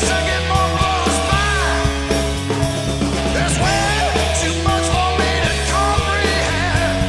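Rock music: a band recording with a steady drum beat, bass and a wavering lead melody over them.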